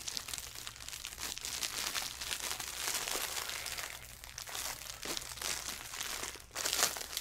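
Plastic packaging crinkling and crackling steadily as it is pulled open from around a soft folded item.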